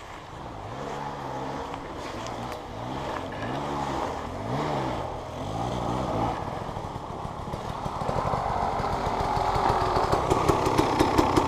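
A small off-road engine revving up and down about five times in quick succession. Then a steadier engine with a fast pulsing beat grows louder and closer toward the end.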